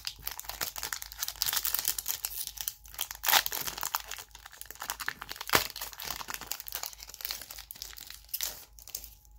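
Foil wrapper of a Pokémon card booster pack crinkling and tearing as it is opened by hand, with two sharper, louder crackles about three and five and a half seconds in.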